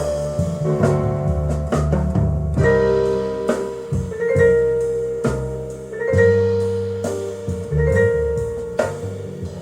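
Instrumental intro of a Japanese vocal song played through Victor JS-55 loudspeakers driven by a Nakamichi Amplifier 2: a run of struck, pitched notes with sharp attacks over a sustained bass line, without singing.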